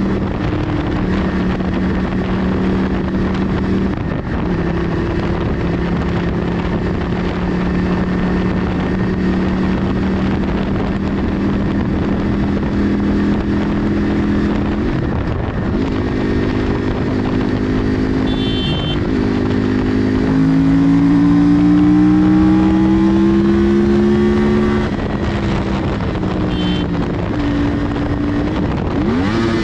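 Yamaha R1 crossplane inline-four with a Toce aftermarket exhaust, heard from the rider's seat while cruising under steady throttle, with wind rushing over the microphone. The engine note steps down at several gear changes. About two-thirds of the way through it pulls harder, its pitch climbing for about four seconds, then drops at an upshift.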